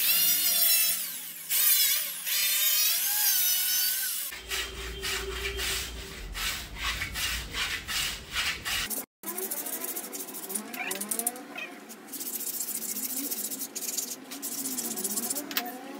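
A power saw cutting strips of WPC (wood-plastic composite) panel, its motor pitch rising and falling as it works through the cut. After about four seconds it gives way to evenly repeated strokes, about three a second, then to quieter cutting and rubbing noise after a short break near the middle.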